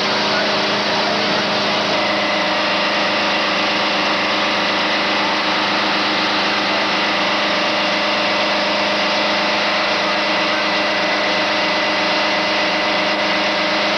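Fire engine running steadily at the fire scene, a continuous even engine drone with several steady tones that does not change.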